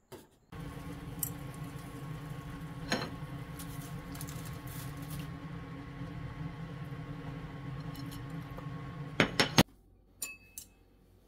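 Steady humming of a kitchen exhaust fan, broken by a sharp click about three seconds in. Near the end there is a quick run of three or four loud clacks and the hum cuts off suddenly. Two light clinks of chopsticks on a ceramic bowl follow.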